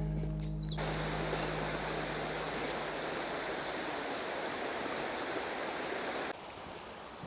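River water rushing steadily, coming in about a second in as music with a few bird chirps fades out, and cutting off abruptly near the end.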